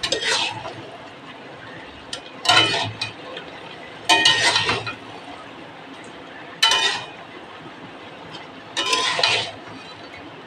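Metal spatula scraping and clinking against a metal wok as chopped ridge gourd is stirred: five short strokes about two seconds apart.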